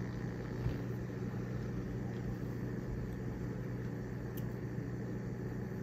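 Quiet workbench room tone: a steady low electrical hum, with a couple of faint ticks from small wires being handled.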